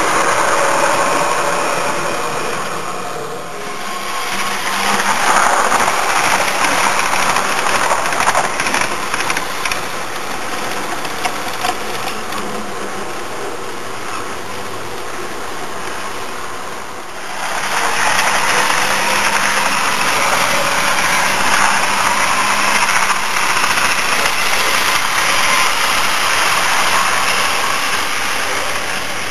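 Model railway diesel locomotives and coaches running along the track, a steady mechanical running noise of motors and wheels. It dips briefly twice, about 3 seconds in and about 17 seconds in.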